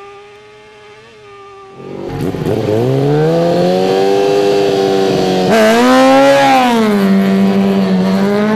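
Suzuki race motorcycle engine launching from a standing start: a quieter steady engine note, then about two seconds in the engine revs hard and the pitch climbs as the bike pulls away. There is a gear change around the middle, and near the end the pitch falls and holds steady.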